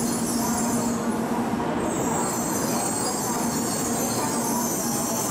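N700-series Shinkansen train pulling slowly into the platform: steady rolling and running noise with a constant low hum.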